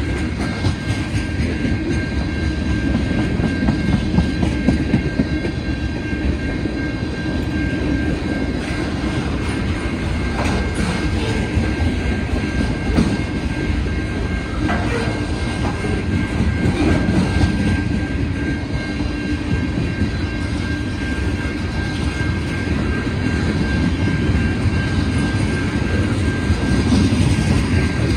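Freight cars of a CN manifest train rolling past: a steady rumble of steel wheels on rail, broken by irregular clicks and clunks as the wheels cross rail joints, with a thin steady high tone over it.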